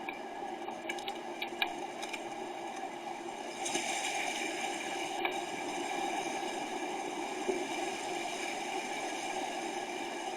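Wind buffeting an outdoor camera microphone, a steady rushing noise that grows stronger a little over three seconds in. A few faint clicks come in the first two seconds.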